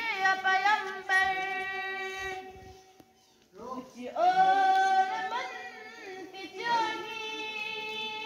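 A student singing a nazm (an Urdu poem) unaccompanied: one young voice holding long, steady notes with small gliding turns between them, with a brief pause for breath about three seconds in.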